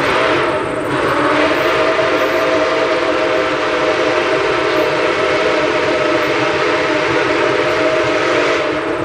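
Steam whistle of Nickel Plate Road 765, a 2-8-4 Berkshire steam locomotive, held in one long steady blast that stops just before the end, over the noise of the working locomotive.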